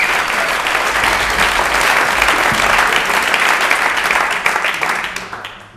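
Theatre audience applauding: dense, steady clapping from a full house that dies away over the last second.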